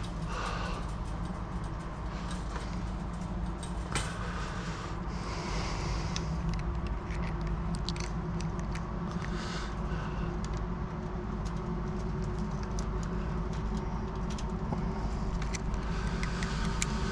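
Steady low hum of road traffic, with scattered small clicks and rattles of chain-link wire being handled and tightened.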